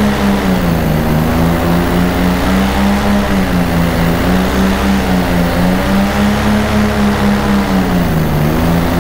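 Paramotor engine and propeller running, heard from on board a paramotor in flight. The engine pitch wavers with the throttle, dipping about a second in and again near the end.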